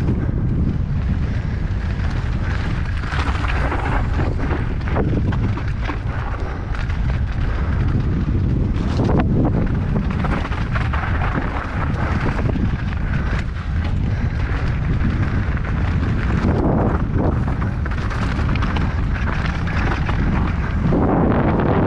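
Wind buffeting a helmet-mounted action camera's microphone during a fast mountain bike descent, with the tyres crunching over loose rock and gravel and a steady string of knocks as the bike hits bumps.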